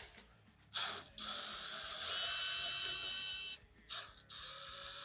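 Electric power tool spinning out a fastener with a high-pitched motor whine, in two runs of about three seconds each with a short pause between.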